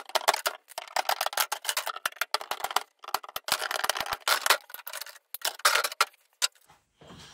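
Aviation tin snips cutting through the plastic rails of a car grille insert: many sharp snips and cracks in quick succession.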